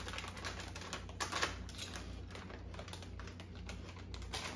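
Crinkly plastic chip bag being handled, giving irregular crackles and clicks with a couple of louder crinkles, about a second in and near the end.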